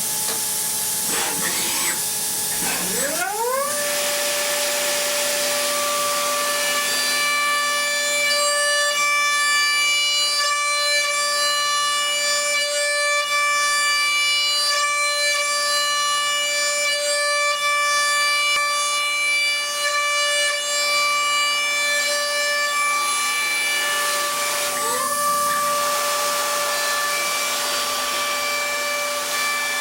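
DATRON high-speed milling spindle running up to speed about three seconds in and then holding a steady high whine with overtones over a hiss, as it mills an electronics housing. About three-quarters through, the pitch dips briefly and climbs back.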